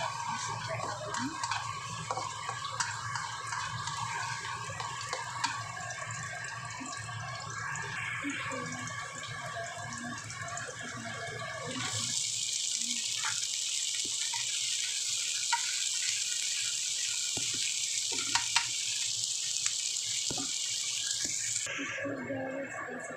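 Ginger and garlic slices frying lightly in oil in a wok, with light crackling over a low hum. About twelve seconds in, raw shrimp hit the hot oil and a loud, steady hissing sizzle takes over for about ten seconds, then dies down near the end.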